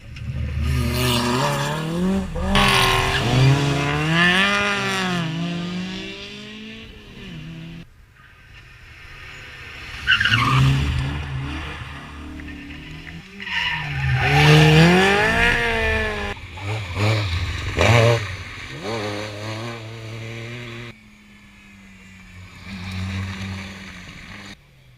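Rally cars' engines revving hard as they drive past, the pitch climbing and dropping again and again with gear changes and lifts off the throttle. The sound changes abruptly several times as one run is cut to the next.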